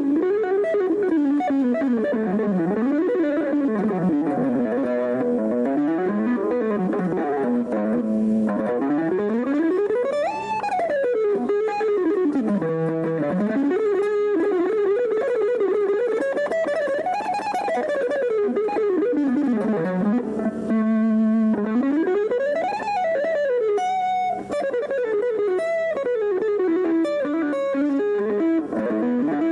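Instrumental music on an amplified plucked string instrument, its lead line gliding continuously up and down in pitch in long slides rather than stepping from note to note.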